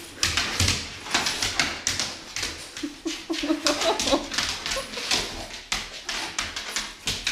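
Excited dog jumping around a person: quick repeated scuffling and breathy sounds, with a short whimpering whine a little past three seconds in.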